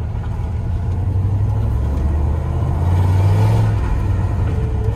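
1999 Dodge Ram 1500's 5.2-litre (318) V8 running while the truck is driven, the engine note building for about three seconds, then easing off a little.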